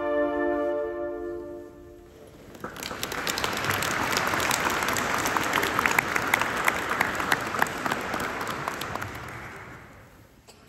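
A transverse flute ensemble holds a final chord, which stops about a second and a half in. About a second later the audience starts applauding, and the applause dies away near the end.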